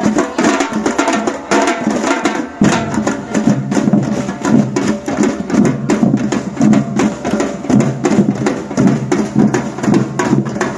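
Batucada percussion ensemble playing a dense drum rhythm, with deeper bass drums coming in strongly about two and a half seconds in.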